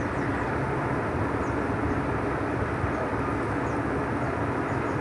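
Engine of a railway crane running steadily, a constant low drone with a steady hum in it.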